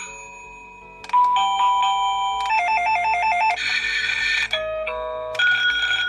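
SilverCrest STK 17 A1 wireless doorbell receiver playing one of its electronic chime tunes through its small built-in speaker. The previous tune dies away, then about a second in a new tune of beeping notes starts, with a fast two-note warble in the middle.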